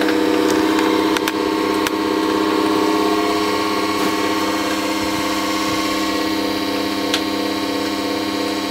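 Xpelair Taurus T10 desk fan running overvolted at about 2,000 volts from a microwave oven transformer: a loud, steady electrical hum of several tones, with rushing air from the spinning blades.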